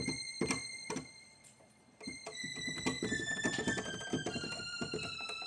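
High notes played on an electronic keyboard, with key clicks: one high note holds for about a second, then after a short lull a run of notes steps down the scale, a new note every third of a second or so.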